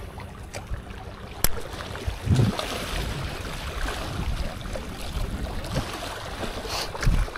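Small sea waves lapping and splashing against shoreline boulders, with wind buffeting the microphone in a couple of low gusts and a single sharp click about one and a half seconds in.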